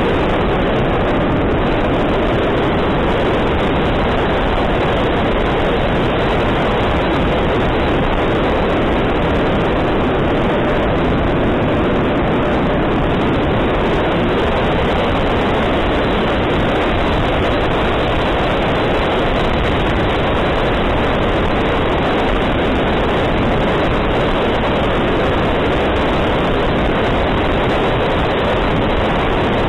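Steady rush of airflow and electric ducted-fan noise from an E-flite F-15 RC jet in flight, picked up by a camera riding on the jet's back. The noise holds at one even level throughout, with no distinct whine.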